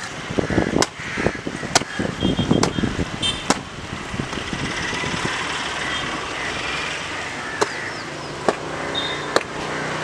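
Water rushing along an irrigation canal in a steady hiss, with sharp slaps recurring a little under once a second.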